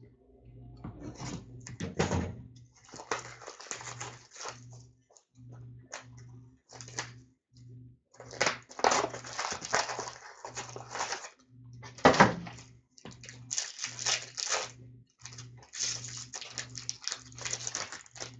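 Crinkling and rustling of trading-card foil packs and box packaging as a hockey card box is opened and its packs are pulled out and stacked, with one louder sharp crackle about twelve seconds in. A low hum cuts in and out underneath.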